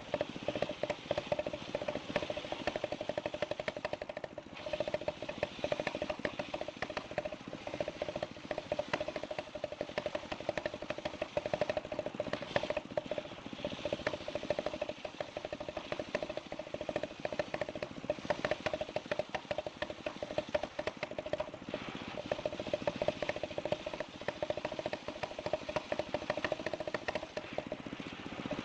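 Engine-driven sawmill saw running steadily with a constant hum and fine rapid ticking.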